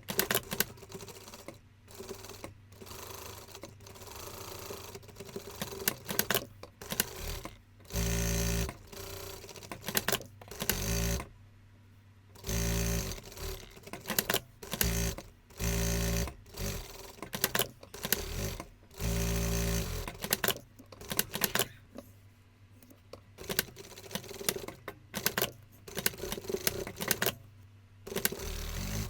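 Sewing machine stitching in several short runs of about a second each, with quick clicks and handling noises in between.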